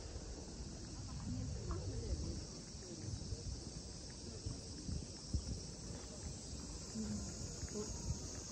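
Steady, high-pitched drone of cicadas in the trees, with footsteps on a paved path as the low thumps underneath and a few faint distant voices.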